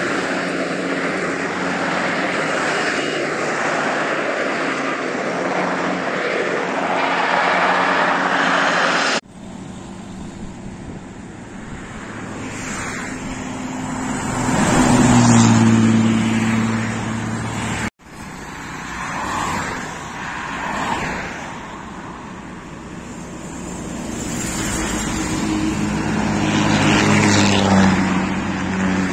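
Diesel bus engines. At first an engine runs steadily, heard from behind a bus in traffic. After two abrupt cuts, two buses drive past close by, one about halfway through and one near the end; each rises to a loud peak as its engine note drops in pitch going by.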